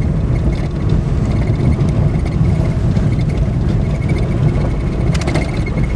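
Peugeot 106 driving on a narrow lane, heard from inside the cabin: a steady low rumble of engine and road noise, with a brief knock about five seconds in.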